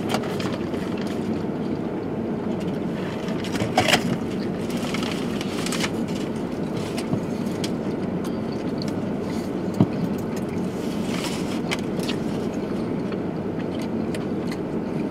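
Steady hum inside a car's cabin, with scattered short rustles and clicks from people eating sandwiches out of foil wrappers.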